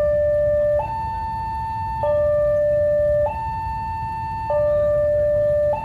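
Railway level-crossing warning alarm sounding a steady two-tone signal: a lower tone and a higher tone take turns about every 1.2 seconds, and the lower tone is the louder. It signals that the barrier is down and a train is approaching. A steady low rumble runs underneath.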